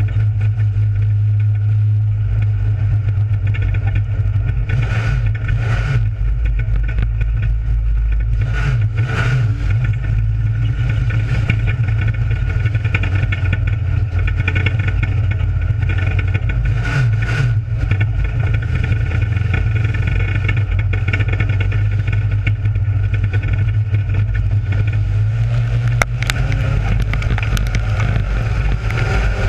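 Dirt-track race car engine running hard at racing speed, heard from inside the cockpit: a loud, steady drone.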